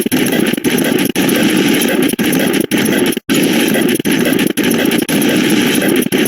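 A loud, noisy stream of sound-effect clips spliced one after another, broken by short gaps about every half second.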